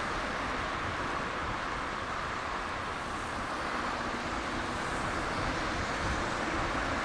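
Steady seaside ambience: a continuous wash of surf and wind, even in level throughout with no distinct events.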